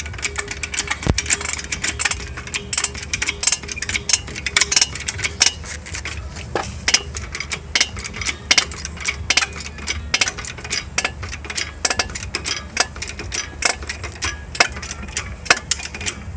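Rapid, irregular run of short, sharp squeaks and clicks from something being lifted: the squeak it makes on lifting.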